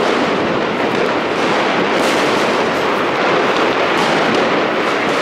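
Dense, continuous crackling of many fireworks and firecrackers going off all around, with a few sharper bangs standing out about two and four seconds in.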